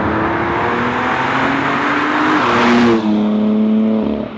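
BMW M2 Competition's 3.0-litre twin-turbo inline-six accelerating past. Its engine note climbs, then drops in two steps about two and a half and three seconds in. It is loudest as the car goes by, then fades near the end.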